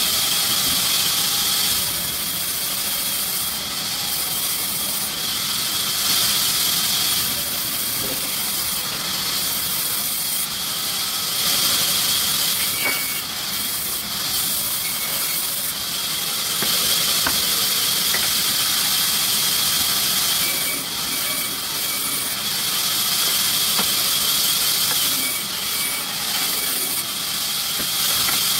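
Sawmill machinery working wood, a steady hiss with a few faint short high squeals and ticks.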